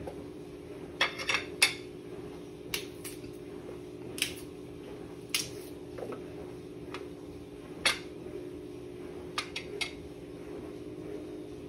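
A metal spoon clinking and tapping against a plastic blender jar and a ceramic plate, in about ten sharp, scattered clinks, over a steady low hum.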